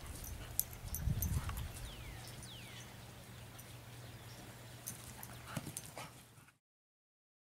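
Two dogs playing on grass: faint scuffling, soft paw thuds and clicks as they wrestle, with two short falling chirps in the middle. The sound cuts off to silence about six and a half seconds in.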